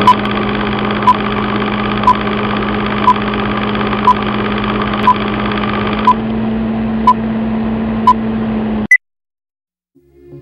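Film-leader countdown sound effect: a steady film projector whirr with a short beep once a second, nine times, then a single higher beep, after which it cuts off suddenly.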